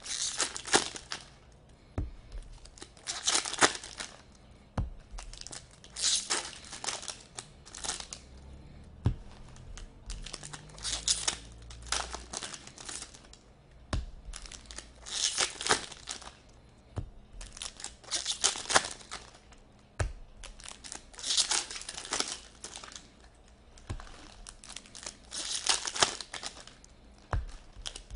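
Foil wrappers of 2017-18 Upper Deck SP Authentic Hockey card packs being torn open and crinkled by hand, in repeated short bursts every second or two, with a few sharp taps in between.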